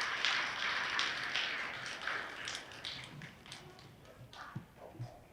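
Audience applause of many hands clapping, which dies away over the first two to three seconds and leaves a few scattered claps and small knocks.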